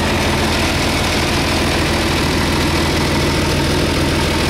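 John Deere 4320's six-cylinder diesel engine idling steadily.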